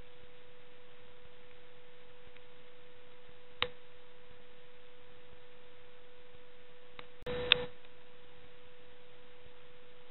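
A steady single-pitch hum, like a pure tone, with one sharp click about three and a half seconds in and a brief rustle with a click just past seven seconds.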